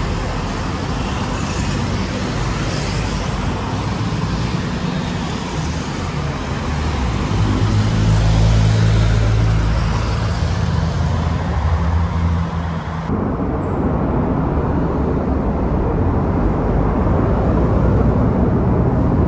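City buses and other road traffic passing close by: engines running and tyre noise, with an engine's low hum loudest about eight to ten seconds in. About thirteen seconds in the sound changes abruptly to a duller traffic hum.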